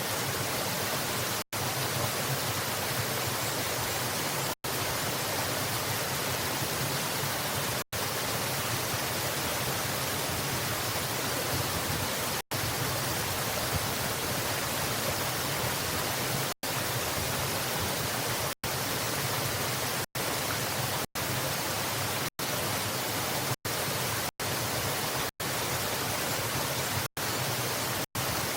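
Steady rushing water of a waterfall, an even hiss across all pitches. It is interrupted by many split-second dropouts to silence, which come more often in the second half.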